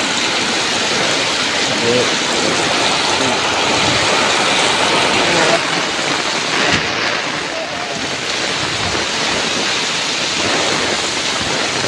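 Heavy rain pouring down in strong wind, a dense, steady hiss. It thins briefly about seven seconds in.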